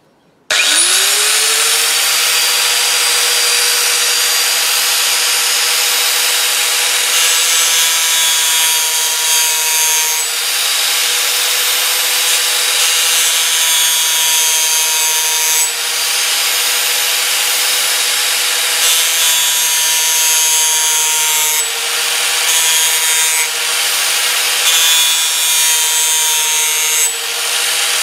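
Angle grinder with a homemade disc rebuilt from two cracked discs: the motor starts about half a second in, spins up with a rising whine, then grinds into a clamped metal piece with a steady whine and a harsh grinding hiss. Its pitch sags briefly about four times as the disc is pressed in under load.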